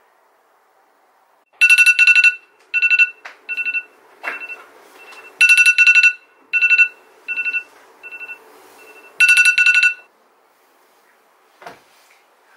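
iPhone alarm ringing: a repeating beep pattern, two loud beeps followed by fainter, shorter ones, sounding three times before it stops. A soft knock follows near the end.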